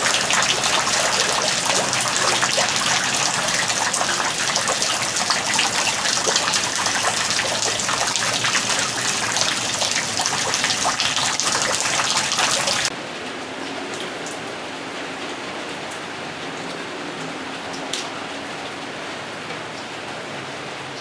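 Heavy rain pouring down, a dense steady hiss with fine patter. About thirteen seconds in it cuts off abruptly to much quieter, softer rain, with a single light click a few seconds later.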